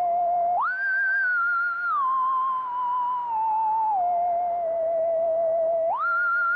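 Korg Minilogue XD synthesizer playing a single-voice lead preset: a nearly pure tone with vibrato that glides between notes. It slides up about an octave near the start, steps down through several lower notes, then slides back up near the end.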